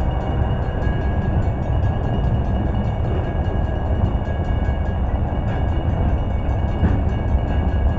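Freight train tank cars rolling past, a steady loud rumble of steel wheels on the rails.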